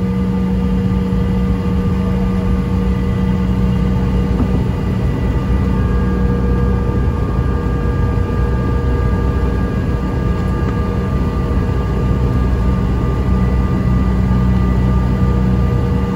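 Cabin noise inside a CRJ-900 regional jet slowing after landing. Its rear-mounted GE CF34 turbofans make a steady hum with several whining tones over a low rumble.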